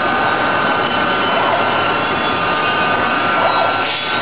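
Honey packaging machine running: a steady mechanical noise with a constant high whine.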